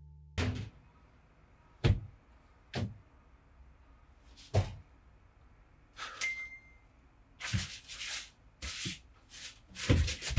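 Irregular knocks and thuds, about ten of them, each short and separate, with a brief high tone about six seconds in.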